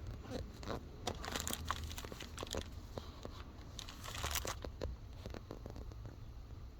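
Irregular crinkling and rustling of a cabin air filter or its plastic packaging being handled, with scattered sharp clicks.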